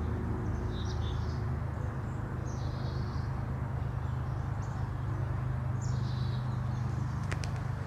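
Birds giving short high chirps every few seconds over a steady low rumble of background noise, with two sharp clicks near the end.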